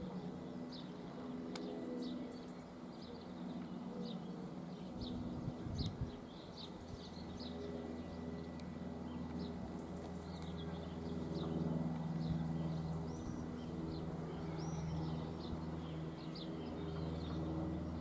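Class 387 electric multiple unit pulling away, a low steady hum from its traction equipment, with small birds chirping throughout.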